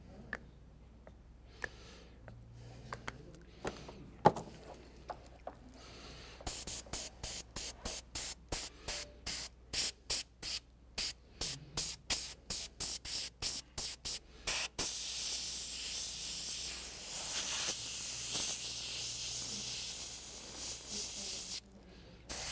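Airbrush hissing as it blows thin paint across a disc, first in short spurts about two or three a second, then as a steady spray from about fifteen seconds in, stopping briefly near the end. A single sharp knock comes about four seconds in, before the spraying starts.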